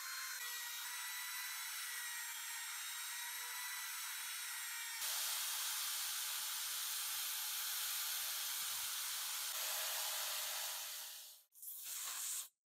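Small high-speed rotary tool running with a steady whine and hiss as its spinning disc scrubs rust from the threads of a steel shaft. About five seconds in it changes abruptly to a louder, even grinding hiss from a second pass over the smooth shaft. This stops shortly before the end, followed by a brief burst of the same kind of noise.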